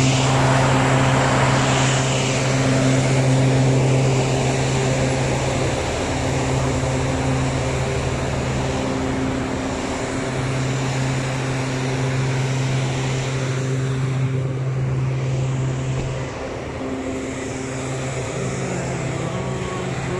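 City street traffic: a steady low engine-like drone over the noise of passing cars, easing off a little about sixteen seconds in.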